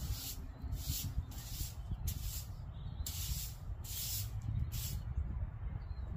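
Straw broom sweeping a porch floor: a run of brisk swishes, about one a second, over a steady low rumble.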